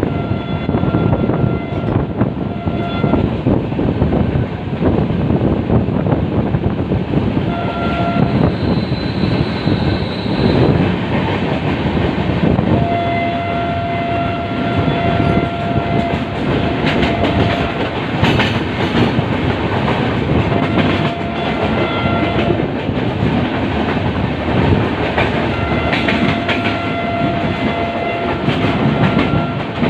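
Rumble and clickety-clack of a moving Indian passenger train, heard through an open coach window, with a freight train of tank wagons running close alongside on the next track. A train horn sounds several times: the longest blast, about three seconds, comes near the middle, and another long one near the end.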